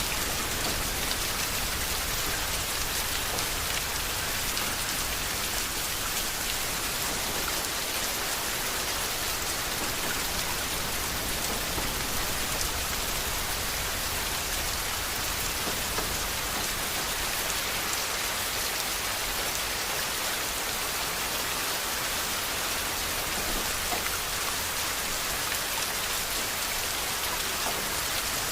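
Steady rainfall: an even hiss of rain with many small drop ticks, unchanging throughout.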